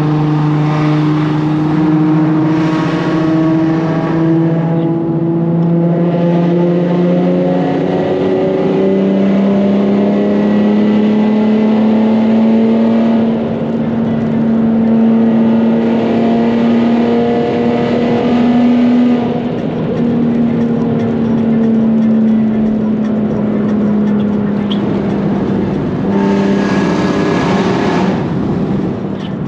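Nissan 370Z's 3.7-litre V6 exhaust drones steadily under load in a tunnel. Its pitch steps up about eight seconds in, drifts gently, then drops back near the end.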